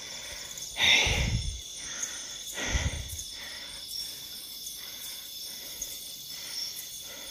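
Night insects, crickets, trilling in a steady high continuous tone. Two brief rustling sounds come about one and three seconds in.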